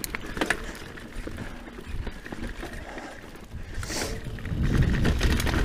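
Scott Genius full-suspension mountain bike rolling along a narrow, overgrown dirt singletrack: scattered clicks and rattles from the bike over the rough trail, a swish of bushes brushing past about four seconds in, and a low rumble that grows louder near the end.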